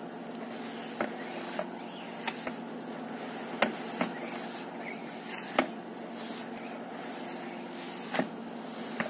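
Hands kneading and mixing a damp soapstone-and-dolomite powder in a plastic tub, with scattered sharp knocks, about nine in all, the loudest a little over a third of the way in and past the middle. A steady mechanical hum runs underneath.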